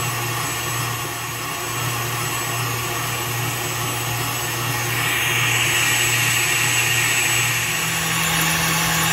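Electric stand mixer running steadily, its wire whisk whipping heavy cream and mascarpone in a steel bowl. The motor hum steps up in pitch near the end as the speed rises.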